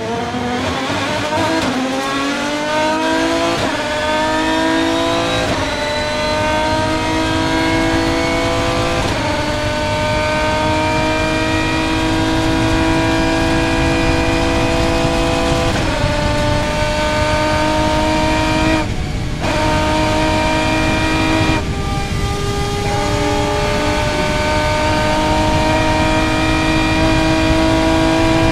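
Aston Martin DBR9's 6.0-litre V12 racing engine heard from inside the cockpit under full throttle. Its pitch climbs and drops back with several quick upshifts, then holds a steady high note on a long straight, broken by a couple of brief dips later on.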